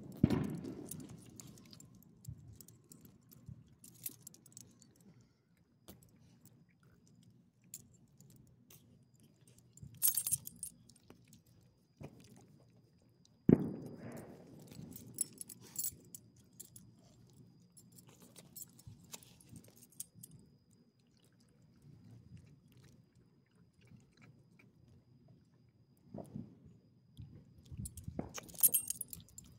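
A dog's metal ID tag and chain collar jingle in short bursts as the dog moves and rolls, with the dog chewing food between them. Two dull booms of fireworks, one right at the start and one about 13 seconds in, are the loudest sounds.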